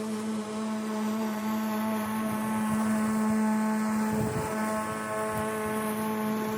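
Lawn-care machine motor running steadily at a constant pitch, a hum with a stack of overtones, with a little low rumbling about two-thirds of the way through.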